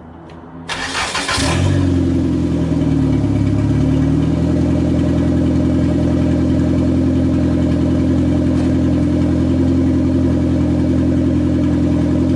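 Toyota 4E-FTE turbocharged four-cylinder engine cranked and started, catching about a second and a half in; its speed dips and comes back up, then it settles into a steady idle. It runs through a straight turbo downpipe with no further exhaust.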